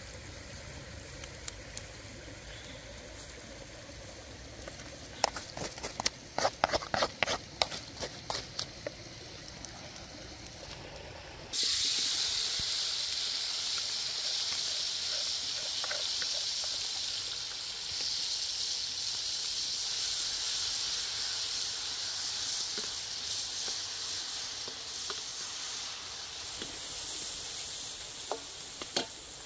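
A run of sharp knocks from a wooden pestle in a clay mortar pounding chillies and shallots. A little before halfway, a loud sizzle of food frying in a hot wok starts suddenly and slowly fades.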